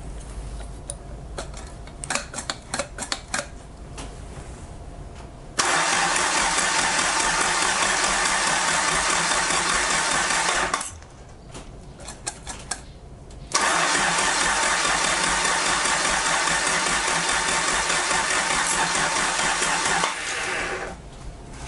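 Toyota 4A-GE twin-cam four-cylinder on an engine stand being cranked on its starter in two long, steady bursts of about five and six seconds, with clicks from the throttle linkage before and between them. The second burst winds down and the engine does not fire.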